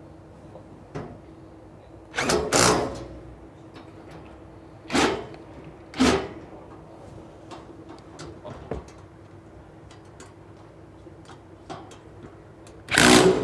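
Cordless power driver tightening bolts in short runs: two quick bursts about two seconds in, single bursts around five and six seconds, and one more near the end. Small metallic clicks of the tool and bolts come in between.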